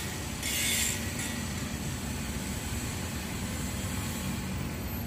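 Kubota mini excavator's diesel engine running steadily as it digs, with a short hiss about half a second in.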